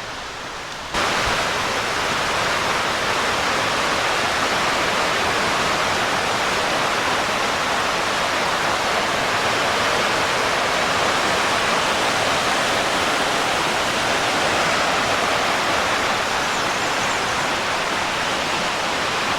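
Steady rush of running stream water, cutting in abruptly about a second in.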